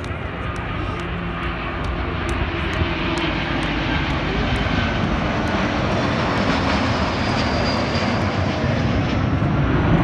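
Wizz Air Airbus A320-family airliner's twin jet engines on a low flypast: a steady rushing jet noise that grows louder throughout as the aircraft comes closer.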